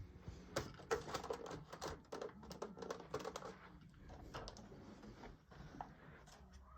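A run of faint, irregular clicks and taps, several a second, like small handling noises close to the microphone.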